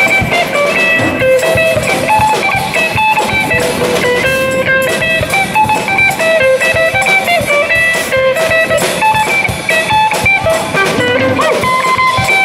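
Live electric guitar through an amplifier and a drum kit playing a bluesy tune.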